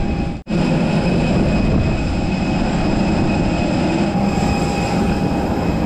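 Steady rumble and hum of a moving vehicle, with a few faint steady whining tones above it. It cuts out for a moment about half a second in.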